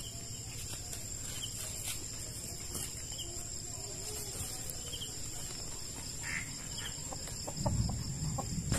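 A chicken roosting in a tree clucking faintly in short, scattered notes, over a steady high drone of insects. Louder rustling near the end.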